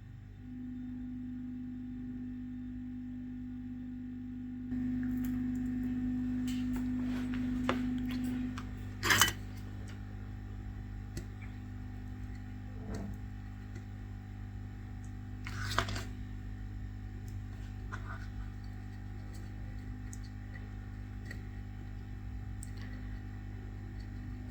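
Steady electrical hum with a clear low tone from the soldering equipment on the repair bench, and a few light clicks and taps of tools on the phone board, the loudest about nine seconds in and another near sixteen seconds.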